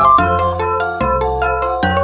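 Upbeat background music: a quick melody of short, bright notes over a bass line that changes note about once a second.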